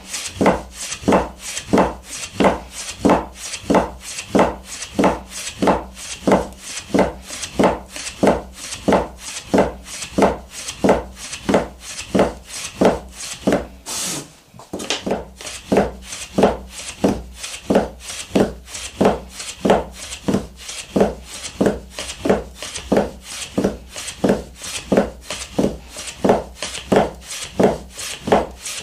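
Soba-kiri knife cutting folded buckwheat noodle dough on a wooden board against a komaita guide board: each stroke slides through the dough and knocks onto the wood, about two cuts a second in a steady rhythm, with a brief break about halfway.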